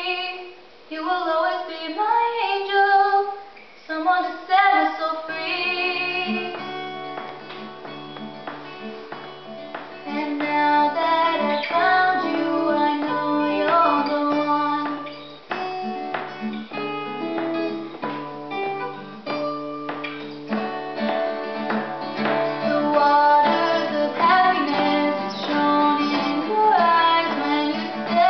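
Girls singing a slow song, unaccompanied at first. An acoustic guitar comes in about five seconds in and plays under the singing.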